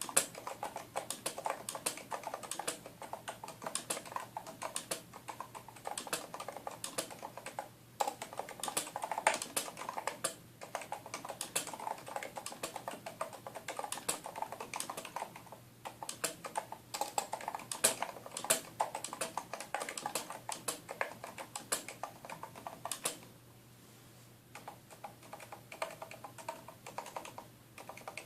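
Typing on a Cooler Master NovaTouch keyboard, its Topre capacitive switches fitted with 0.8 mm rubber O-rings that damp the keycaps as they bottom out. Quick runs of keystrokes with short pauses, a brief lull a little past the twenty-second mark, then lighter typing.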